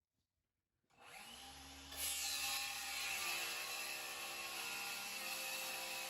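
Electric power tool starting about a second in, its motor spinning up, then running steadily and louder from about two seconds in, typical of cutting into a solid-surface countertop sheet.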